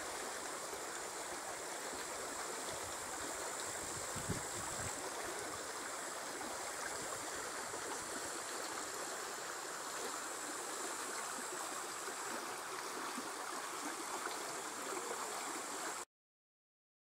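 Shallow stream flowing over pebbles and small stones, a steady babbling rush of water; it cuts off suddenly near the end.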